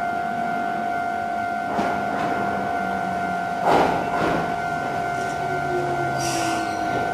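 Nagano Electric Railway 2000 series electric train running into the station and slowing, its motor hum sliding down in pitch, with two short clattering bursts from the running gear, the second and loudest about four seconds in, and a brief high wheel squeal near the end. A steady tone runs underneath.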